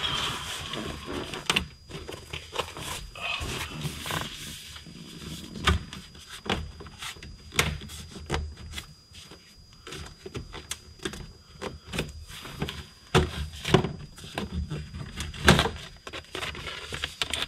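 Plastic passenger kick panel being pulled and worked loose by hand, irregular clicks, knocks and rattles of the trim and its clips with rustling between them, the sharpest knocks coming in the last few seconds.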